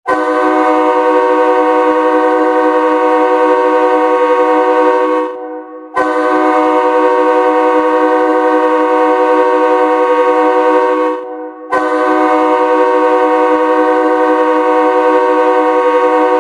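The Austin Bruins' 2010–14 ice hockey goal horn sounds three long, steady blasts of about five seconds each, with brief gaps between them. Each blast is several horn tones sounding together.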